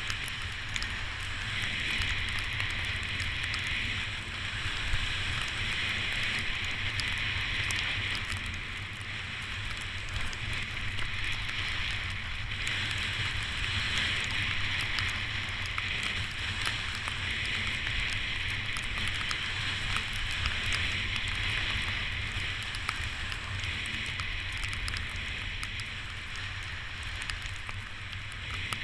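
Continuous hiss and scrape of snow under a rider sliding downhill, swelling and easing every few seconds as the turns change, over a low wind rumble on the microphone.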